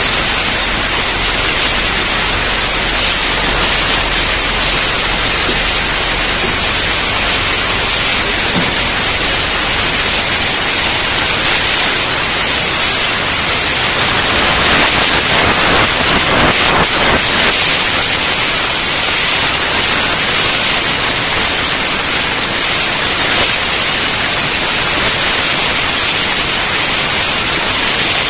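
Loud, steady static-like hiss with no other sound standing out, and a few brief crackles about halfway through.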